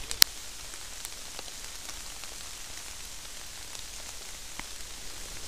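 Steady rain falling, an even soft hiss, with one sharp tap a fraction of a second in and a few faint ticks of single drops after it.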